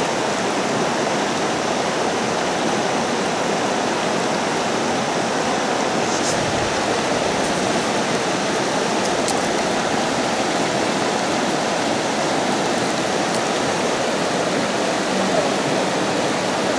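River water rushing steadily, an even, continuous noise of flowing current.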